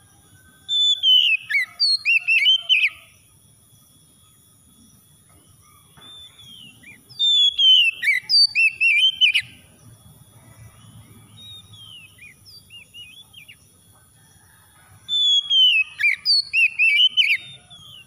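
Oriental magpie-robin singing: three loud song phrases several seconds apart, each a falling whistle followed by a quick run of repeated notes, with softer notes between the phrases.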